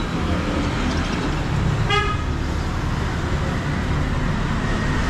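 Steady street traffic noise with one short vehicle horn beep about two seconds in.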